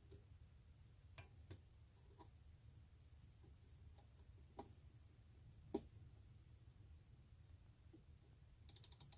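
Torque wrench tightening a water pump bolt: faint, scattered single clicks about a second apart, a sharper click a little past halfway, then a quick run of about six ratchet clicks near the end.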